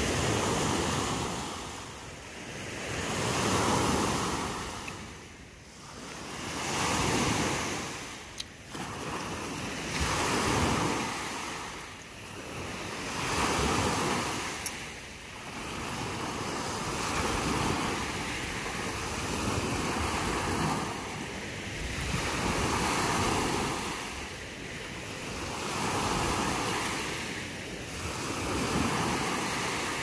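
Small waves breaking and washing up a sandy beach, the surf swelling and falling away about every three seconds.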